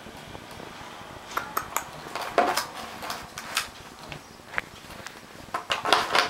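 A dog chewing and pawing at a crumpled plastic bottle, the thin plastic crackling irregularly. The crackles start about a second in, and the loudest cluster comes near the end.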